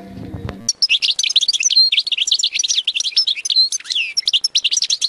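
European goldfinch singing: a fast, continuous twittering song of quick chirps and trills that starts abruptly under a second in.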